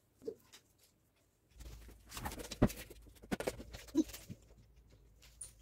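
Scattered light clicks and knocks over a low rumble, beginning suddenly about a second and a half in, with one sharper knock about halfway through: handling noise and small movements around a child at play.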